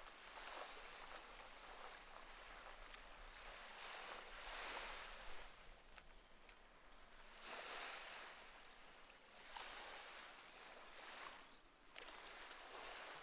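Faint small waves lapping and washing onto a sandy beach, the wash swelling and falling back every few seconds.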